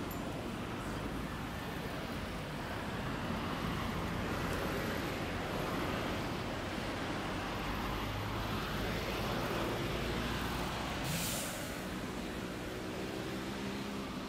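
City street traffic with a heavy road vehicle, a bus or truck, running close by. About eleven seconds in comes a short, sharp air-brake hiss, followed by the steady low hum of its engine idling.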